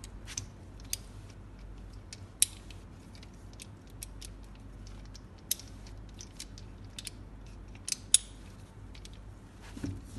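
Irregular clicks and light clatter from a compact tabletop tripod's legs being twisted, unfolded and locked by hand, a few clicks much sharper than the rest. A soft thump near the end as the tripod is set down on the table.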